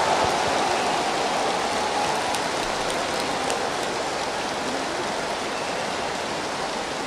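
Large audience applauding, the clapping slowly dying down.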